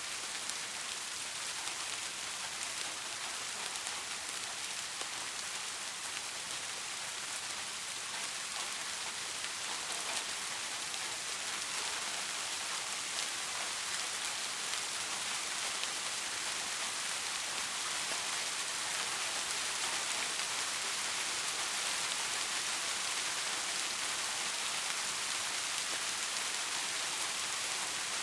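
Steady rainfall: an even hiss of rain with a few sharper drop ticks now and then.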